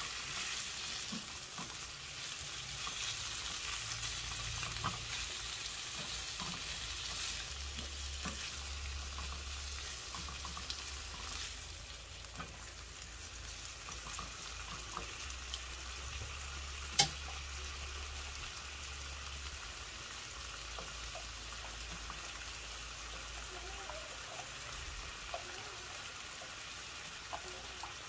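Pork pieces and chopped red onion sizzling in avocado oil in a nonstick frying pan, stirred with a silicone spatula, with small scraping taps. A single sharp click about two-thirds of the way through, and the sizzle eases a little after about twelve seconds.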